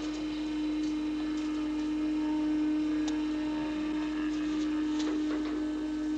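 Suspense film score: a single low note held steadily, with a few faint clicks above it.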